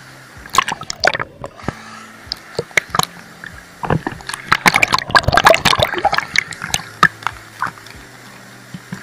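Water splashing and sloshing with irregular sharp clicks and knocks, densest and loudest about four to six and a half seconds in.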